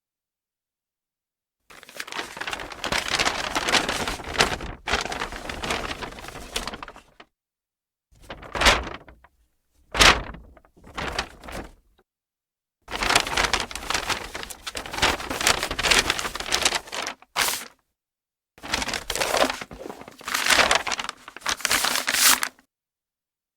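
Brown paper bag being handled, crinkled and crushed in several bouts of crackling: a long stretch near the start, three short crunches in the middle, then two longer bouts of crumpling, each separated by silence.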